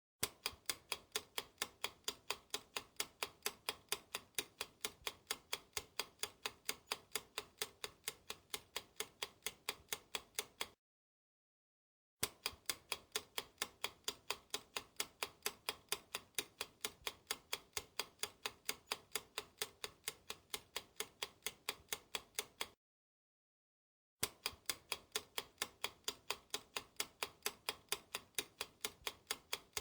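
Clock-ticking sound effect, even ticks in stretches of about ten seconds, each stopping dead for a second and a half before starting again: a countdown timer for each quiz question.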